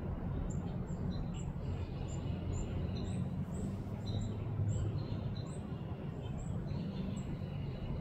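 Short, high bird chirps repeating about once or twice a second over a steady low rumble.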